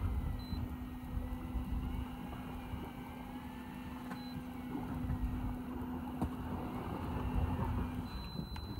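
A steady motor hum that stops about eight seconds in, over a low rumble of wind and water against the boat.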